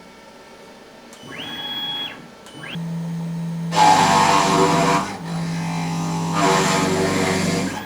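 A power drill whirring up and then spinning down, once and briefly again, while screws are backed out of the plywood. Then a CNC router spindle runs and drills dowel holes into the plywood in two loud stretches.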